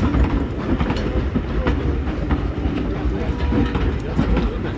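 Passenger coaches rolling past on the track, wheels clicking rhythmically over rail joints above a steady low rumble.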